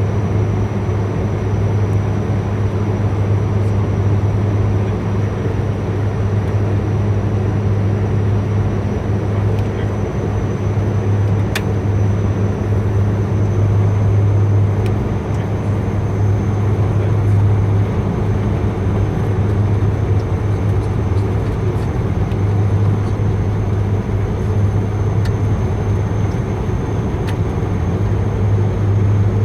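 Dash 8 Q400 turboprop in flight on approach: a steady low propeller drone over a constant rush of engine and airflow noise. One brief click about twelve seconds in.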